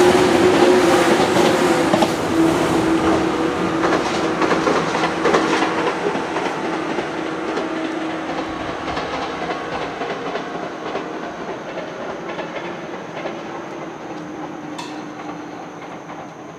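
113-series electric train passing close by, its wheels clattering over the rails and a steady motor hum sagging slightly in pitch. The sound fades steadily as the train runs off into the distance.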